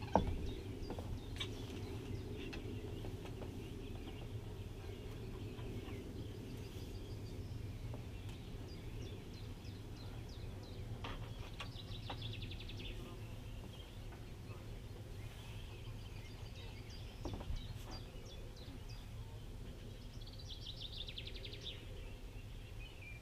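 Outdoor morning ambience by a lake: a songbird gives a short quick trill about halfway through and again near the end, the second falling in pitch, over a steady low rumble, with a few faint knocks.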